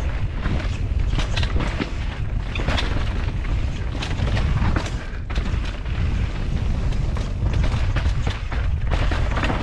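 Mountain bike descending a loose dirt trail at speed, heard through a GoPro's microphone: a constant wind and tyre rumble with many sharp knocks and rattles as the bike runs over the rough ground.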